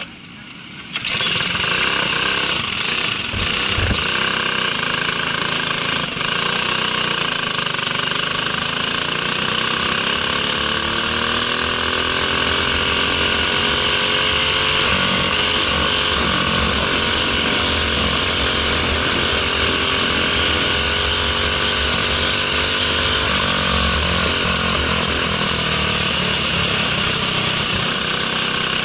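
Briggs & Stratton LO206 single-cylinder four-stroke kart engine, heard close from a camera on the kart. It comes in loud about a second in and then runs hard under load, its revs rising and falling as the kart laps the track.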